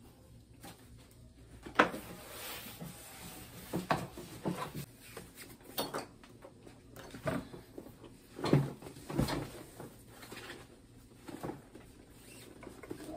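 Scattered knocks, clicks and rustles of fabric and elastic being handled, with the loudest knocks about 2 seconds in and near the middle.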